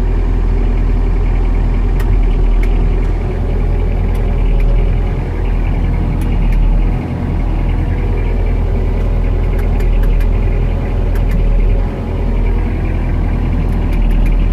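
Four-cylinder Peugeot diesel engine of a self-propelled crop sprayer running steadily, heard from inside the cab, with a few light clicks.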